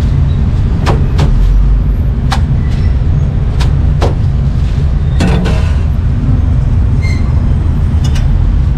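Steady street traffic rumble with sharp knocks about once a second, irregularly spaced.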